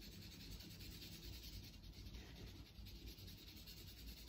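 Graphite pencil, held on its side, shading on toothy printmaking paper: a faint scratch, scratch of the lead rubbing across the paper.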